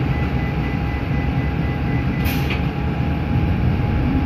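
Inside a city bus under way: the engine running and road rumble, steady throughout, with a faint steady whine and a short hiss about halfway through.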